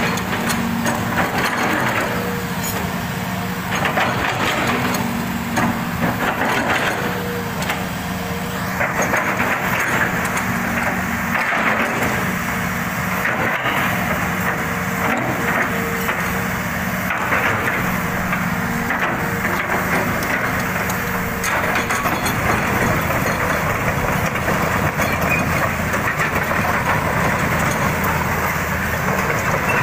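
Hitachi hydraulic crawler excavator running as its boom and bucket are worked, a steady engine hum under a rough crackling noise. The sound grows louder about nine seconds in.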